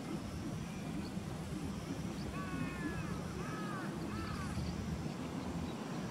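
Outdoor background of a steady low rumble, with a bird giving three short rising-and-falling calls a little past the middle.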